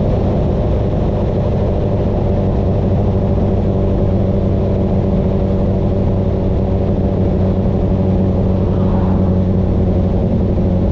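Honda CB1000R's inline-four engine through a CS Racing full exhaust system, running loud and steady at an even engine speed while the bike is ridden.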